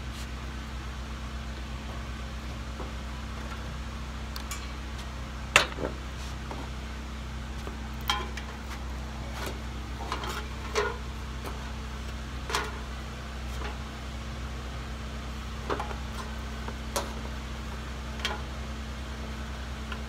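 Corrugated steel roof of a shipping container popping and clanking as it flexes under someone's footsteps. The roof is not yet stiffened by the centre angle iron. Scattered sharp knocks come every second or two, the loudest about five and a half seconds in, over a steady low hum.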